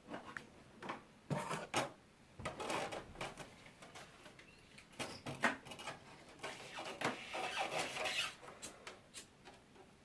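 Irregular clicks, knocks and brief scraping sounds of hands handling the mini band saw and its blade.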